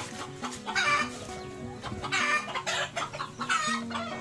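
Chickens clucking: three loud calls about a second and a half apart, with quieter clucks between.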